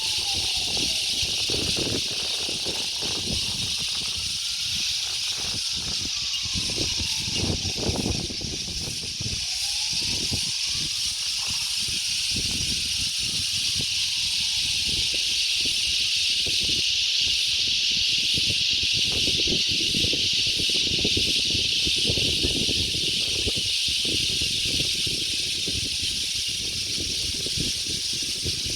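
Wind buffeting the microphone in uneven low rumbles, over a steady high-pitched hiss that holds throughout.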